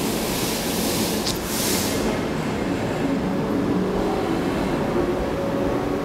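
Steady mechanical hum of a train, with a loud hiss that lasts the first two seconds.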